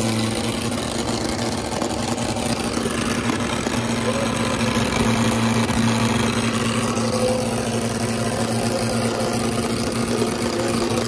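Mahindra Arjun 555 tractor's diesel engine running hard at a steady pitch while straining against a second tractor in a tug-of-war pull, with the other tractor's engine running behind it.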